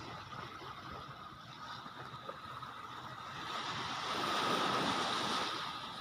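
Surf washing in, with wind on the microphone; a wave swells up about halfway through and eases off near the end.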